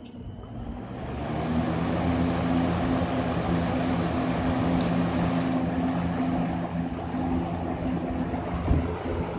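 Lakewood S-238 box fan coming up to speed over the first second or so, then running steadily: a rush of air from the blade over a low motor hum. A single short knock near the end.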